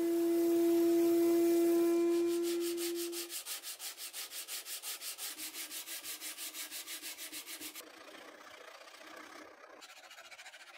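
Shop-built belt sander running with a steady hum as a wooden handle is held against it, stopping about three seconds in. Then a sanding sponge rubbed fast back and forth over the wood by hand, about four to five strokes a second, and near the end a fainter rasp of a file on the wood.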